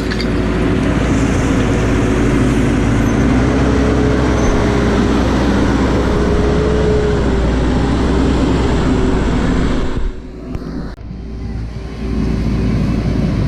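JCB 4CX backhoe loader's diesel engine running hard at working revs, with a steady whine over it that rises in pitch briefly twice. About ten seconds in, the sound drops away for a couple of seconds, then comes back.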